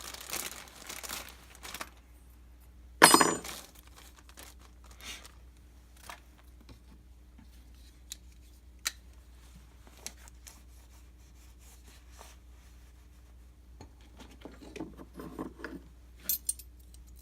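Handling noise of small hardware and its packaging: crinkling at first, one loud clatter about three seconds in, then scattered light clicks, and more handling with a couple of small metal clinks near the end.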